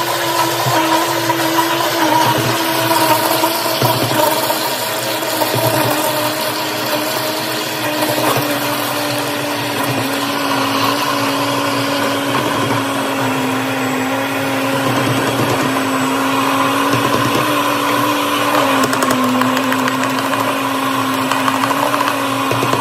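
Countertop blender motor running continuously with a steady whine as thick flocão mush is spooned into the egg, oil and sugar batter. The whine sinks slowly in pitch and drops a step further late on: the motor is slowing under the thickening batter, which it soon can no longer blend.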